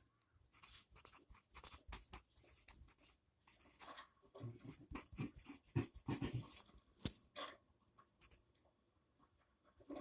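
Faint scratchy strokes of drawing on paper, in quick irregular bursts, busiest in the middle.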